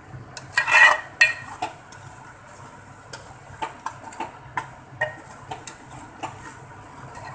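Steel spoon scraping and knocking against the side and bottom of a metal cooking pot as a thick curry is stirred and the tomatoes are mashed in, with irregular clinks about two a second and the loudest scrape about a second in.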